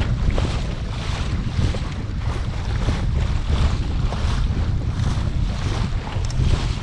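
Water rushing and splashing past the hull of a Laser Pico sailing dinghy under way, in repeated swishes of spray, over a heavy low rumble of wind buffeting the microphone.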